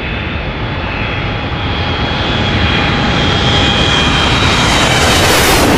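Twin-engine jet airliner taking off at full thrust: a steady jet roar with a high whine, growing louder as it lifts off and climbs past, loudest near the end.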